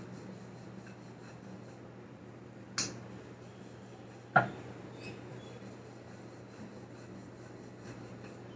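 Wooden rolling pin rolling out a filled paneer paratha on a round wooden board: faint rubbing, with two sharp knocks about three and four and a half seconds in.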